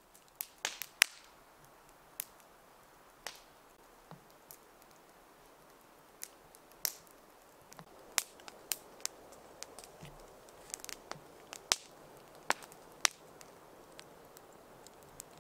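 Wood campfire crackling, with sharp, irregular pops at uneven gaps over a soft hiss.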